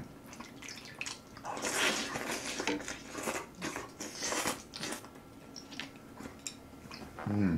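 Close-miked eating: a person slurps noodles out of gomtang (beef bone soup) in a series of noisy sucks, then chews with wet mouth clicks and smacks. A short hum of voice comes near the end.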